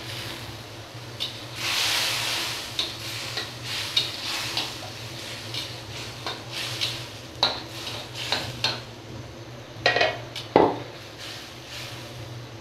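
A metal spatula stirring and scraping a simmering curry in a metal wok, with repeated clicks and knocks against the pan, the loudest a couple near the end. A sizzling hiss, strongest about two seconds in, runs over a steady low hum.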